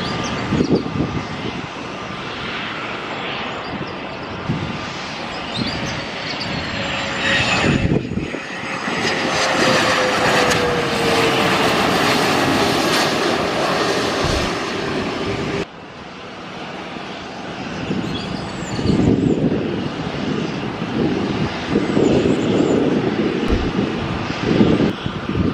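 Twin rear-engined business jets landing: steady jet engine noise with a falling engine whine at its loudest stretch in the middle. The sound is cut off abruptly twice, about 8 seconds and 16 seconds in, as one clip gives way to another.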